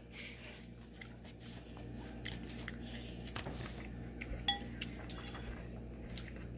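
Metal fork and spoon clinking lightly against a ceramic soup bowl as noodles are stirred and lifted, a scatter of small clicks with one sharper ringing clink about four and a half seconds in.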